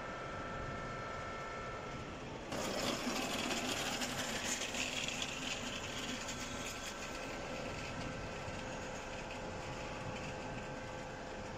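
Electric screw jack lifting system running: motor-driven worm-gear screw jacks hum steadily. About two and a half seconds in, a louder rattling, whirring mechanical noise starts abruptly and then eases off over several seconds.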